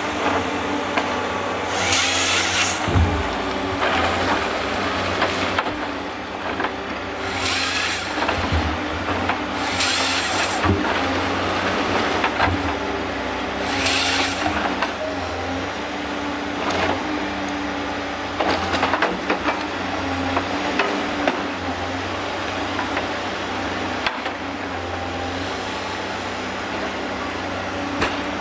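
HSM forestry machines' diesel engines running steadily while their hydraulic cranes handle logs. The hum is broken four times by short, loud hissing bursts, with scattered knocks of wood.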